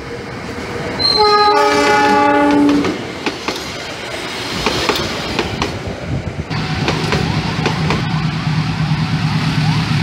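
CC 206 diesel-electric locomotive horn: a short toot about a second in, then a longer chord blast that stops near three seconds. The locomotive and its passenger coaches then run past, wheels clacking over the rail joints, with a steady low engine hum later on.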